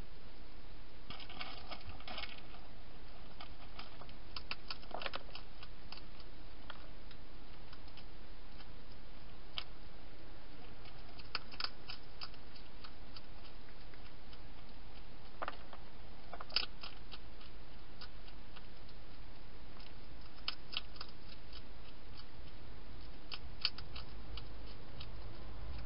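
Hedgehog crunching dry food: scattered bursts of sharp crunches and clicks a few seconds apart, over a steady hiss.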